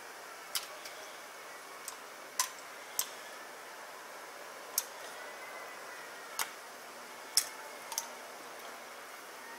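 Churro dough frying in a pan of hot oil: a steady sizzle with about nine sharp pops at irregular intervals.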